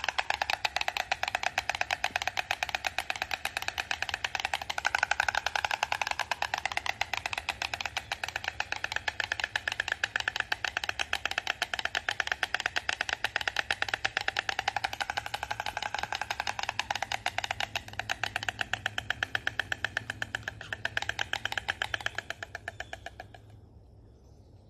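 A fast, even rattle of many clicks a second, which fades out and stops shortly before the end.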